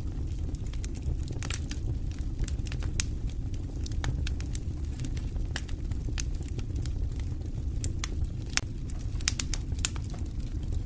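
Wood fire burning in a stone fireplace: a steady low rumble with frequent sharp, irregular crackles and pops.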